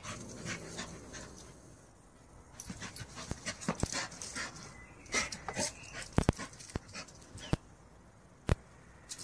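Staffordshire bull terrier panting in quick irregular breaths, with a few sharp clicks that are the loudest sounds, one about six seconds in and one near the end.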